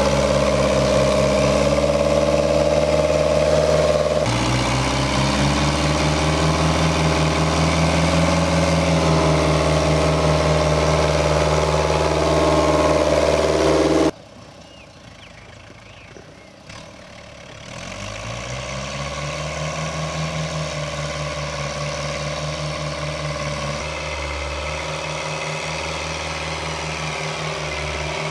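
Fiatagri 70-90 tractor's four-cylinder diesel engine running hard under load while pulling a plough deep through the soil. About four seconds in its note changes abruptly as the driver shifts into third gear. About halfway through the sound drops sharply for a few seconds, then the engine returns fainter and steady.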